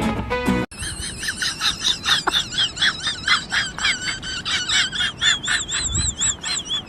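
Music stops abruptly, then an animal gives a long rapid series of high-pitched calls, each rising and falling in pitch, about three or four a second.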